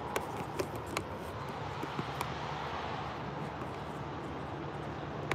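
Several sharp clicks and knocks of a phone camera being handled and repositioned, mostly in the first two seconds, over a steady rushing background noise.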